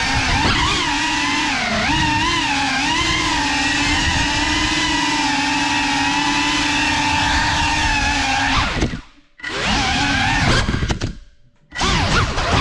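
GEPRC Cinelog35 cinewhoop drone's motors and ducted propellers whining, the pitch rising and falling with throttle. The whine cuts out briefly twice near the end and then comes back.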